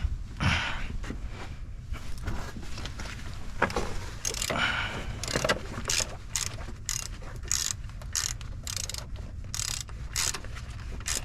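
Socket ratchet wrench turning a bolt: irregular metal clicks and scrapes at first, then a steady run of ratchet clicks, about three a second, from about six seconds in.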